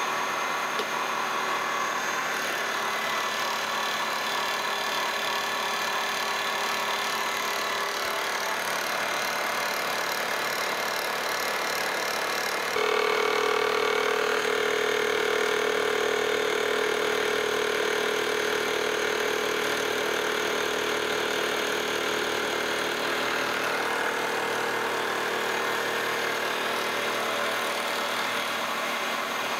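Vertical milling machine running under power table feed, its dovetail cutter taking a light cut of a couple of thousandths along a cast iron gib. A steady machine hum with a strong added tone that comes in about 13 seconds in, a little louder, and eases near 24 seconds.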